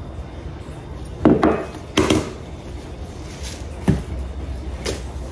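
Kitchen utensils knocking as sugar and seasoning powder are spooned into a ground-pork filling: four separate knocks spread over a few seconds.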